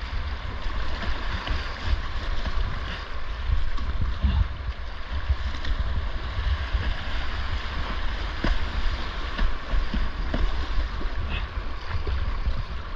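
Whitewater creek rushing past a kayak, with occasional sharp splashes of paddle strokes and a low buffeting rumble on the microphone.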